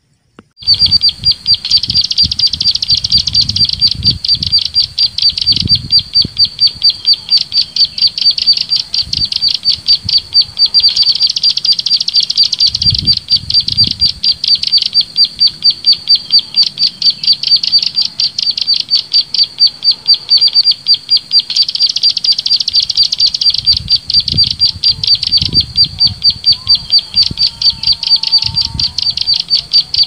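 Bird call played back as a trapping lure: a fast, even train of high chirps, about five a second, that starts suddenly and swells louder every ten seconds or so as the recording loops.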